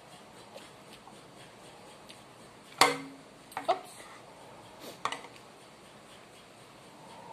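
Metal spoon and fork knocking against a ceramic plate while eating: one sharp clink with a short ring about three seconds in, then two lighter double clinks. Faint small ticks of eating run underneath.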